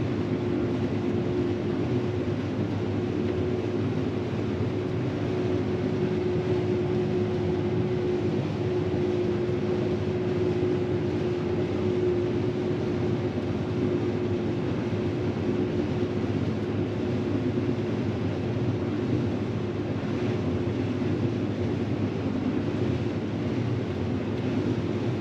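New Holland combine harvester running steadily while harvesting grain: a constant machine drone with a steady hum.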